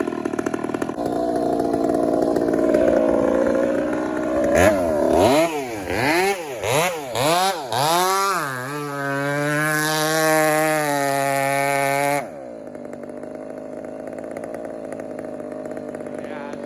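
Two-stroke chainsaw engine revved in about five quick throttle blips, then held at high revs for about three and a half seconds before dropping suddenly back to idle.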